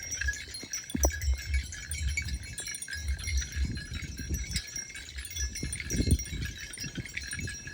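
Metal bells on grazing cows ringing and clinking without pause, over a low uneven rumble.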